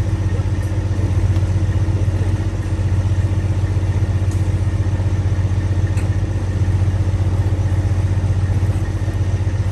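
Semi truck's diesel engine idling steadily, a low even hum, with a couple of faint clicks over it.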